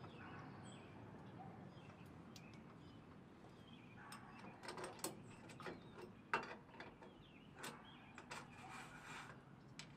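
Faint, irregular light clicks and ticks of metal hardware being handled on a truck-rack upright as its cleat is positioned. They start about halfway through, with the sharpest click a little after that.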